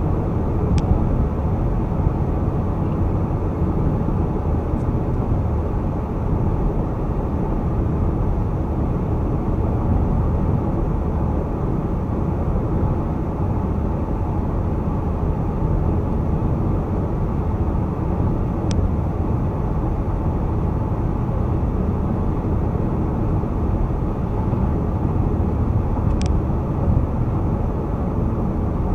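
Steady low road and tyre noise with engine hum from a car cruising on a motorway. There are three faint short ticks, about a second in, midway and near the end.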